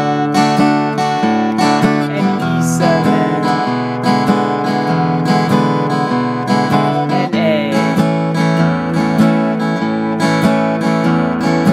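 Guitar flatpicked in a bass-up-down-up, alternate-bass-up-down-up pattern: single bass-note plucks alternating between two strings, each followed by light up-down-up strums. It moves through the A, D and E7 chords in the key of A, changing chord about two and a half and seven seconds in.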